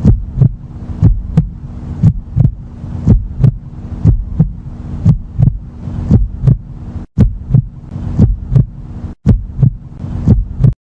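Heartbeat sound effect for suspense: a double thump about once a second over a low steady hum, cutting out briefly twice and stopping just before the end.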